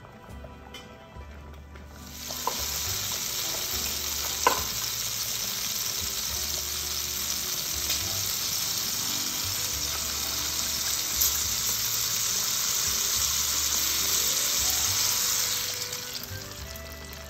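White wine sizzling hard as it is poured into a hot frying pan of cherry tomatoes. The sizzle starts suddenly about two seconds in, holds steady and dies down near the end, with a sharp click about four seconds in.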